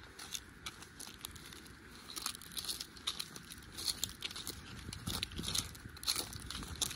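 Footsteps crunching through dry fallen leaves and grass, with irregular crackles that grow denser about two seconds in.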